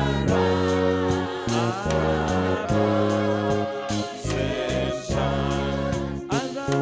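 A gospel worship song: a choir and congregation singing over keyboard and bass backing.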